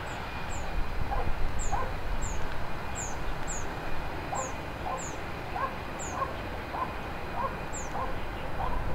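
Small birds calling over and over: thin, high chirps that drop in pitch about once or twice a second, with a row of lower chirps beneath them. Behind them runs the steady rumble of an Airbus A321's jet engines on its takeoff roll down a wet runway, growing a little louder about a second in.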